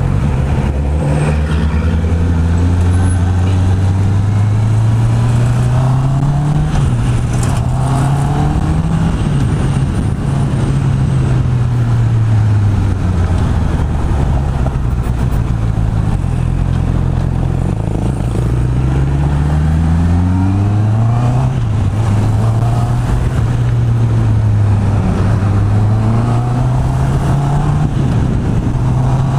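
Honda CB650R's inline-four engine through its stock exhaust while riding. Its pitch climbs, drops sharply at a shift, and climbs again several times as the bike accelerates through the gears and eases off.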